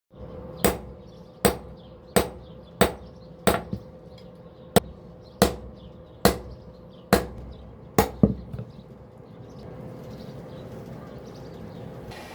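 Blacksmith's hammer striking metal on an anvil: about ten sharp blows at a steady pace, roughly one every 0.7 seconds. The blows stop about eight seconds in after a quick double strike.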